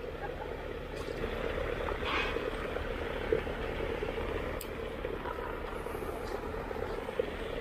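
Steady mechanical hum of a pond paddlewheel aerator running, with a few faint ticks.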